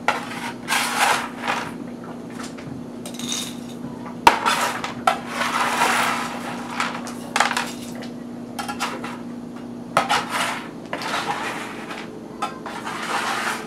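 Roasted pumpkin seeds scraped and swept by hand across a metal baking sheet toward a bowl: irregular scraping and rattling with a sharp click about four seconds in, over a steady low hum.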